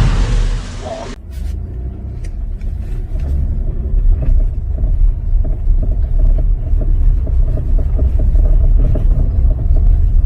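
Chevrolet Colorado pickup on the move, a steady low rumble with rapid rattling knocks from the undercarriage: the clatter that comes with its 2-inch block-type leveling lift. Intro music cuts off about a second in.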